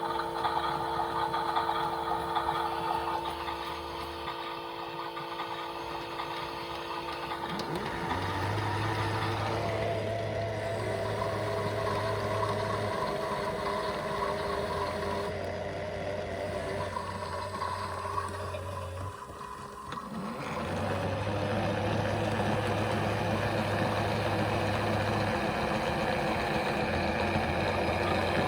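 Toy washing machines running a wash programme: small electric motors whirring in several steady tones, with a low hum that switches on and off every few seconds as the drums start and stop. The sound drops briefly near the end before picking up again.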